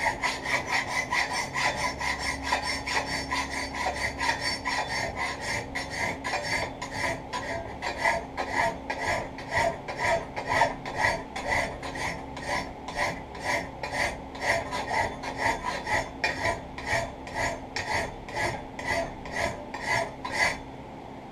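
Hand file rasping on a steel knife blank, forged from an old scythe blade, held in a bench vise. Steady back-and-forth strokes, about two a second, stop shortly before the end.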